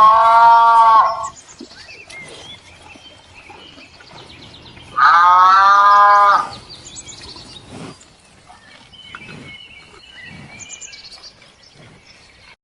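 A farm animal calling twice, two long drawn-out calls about four seconds apart, with faint bird chirps between them.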